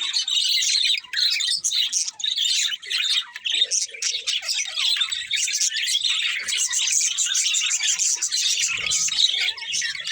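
Budgerigars chirping and warbling, a dense, continuous chatter of short high chirps and squawks from several birds.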